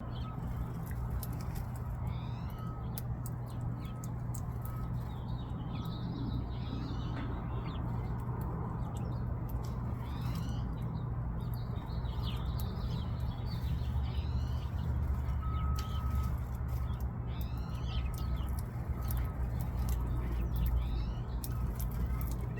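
Birds calling: groups of short, quick chirps come again and again through the stretch, over a steady low hum.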